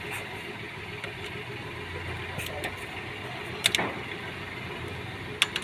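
A steady low mechanical hum, engine-like, with a few sharp clicks about two-thirds of the way through and near the end.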